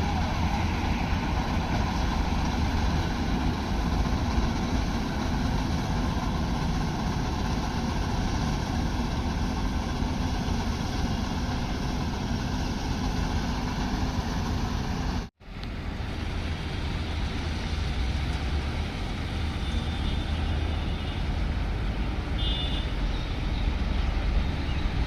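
Combine harvester running steadily, its engine and threshing machinery making a continuous, loud mechanical noise. About 15 seconds in the sound cuts out for a moment and then resumes.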